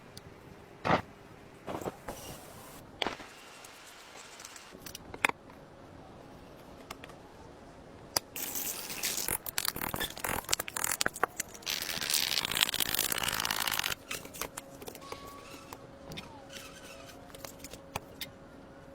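Hands-on building and handling noises: scattered knocks and taps, then about six seconds of dense scraping and crackling from around eight seconds in.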